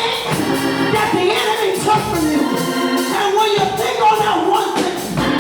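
Gospel church music with an organ playing a melody that slides up and down.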